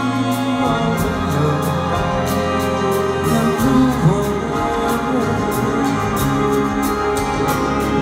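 Live slow ballad: a Kawai stage piano playing sustained chords with singing voices over it.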